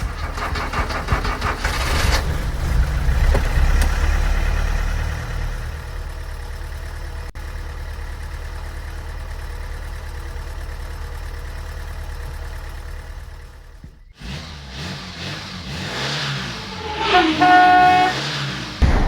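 Car engine running: it swells up over the first few seconds, then holds steady. About fourteen seconds in the sound cuts to a different passage, with a rising pitched tone near the end.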